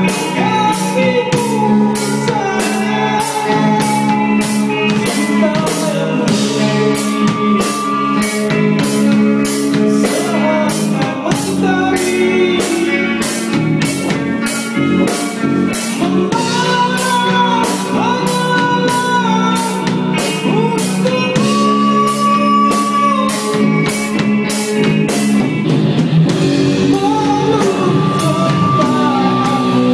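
Live rock band playing with electric guitar, drum kit and sung vocals, the cymbals keeping a steady beat of about two strokes a second.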